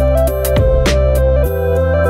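Background music: held keyboard-like chords over sustained bass notes, with a stepping melody and regular percussive hits. The bass changes about one and a half seconds in.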